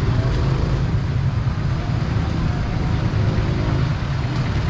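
Steady low rumble of a motor vehicle's engine running close by, with street traffic noise.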